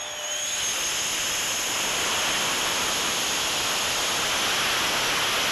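Electric ducted fans of a model VTOL jet running at high power, picked up by a camera on board as a steady rushing noise that grows louder over the first second or two, then holds.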